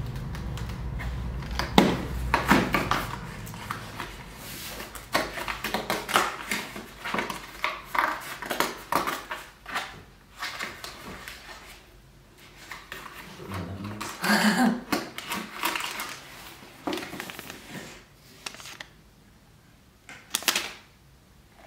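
Cardboard handling: a door of a cardboard tea advent calendar is pushed open and a small box and paper tea sachet are pulled out, giving a run of crinkles, scrapes and clicks that come and go, with quieter pauses near the middle and end.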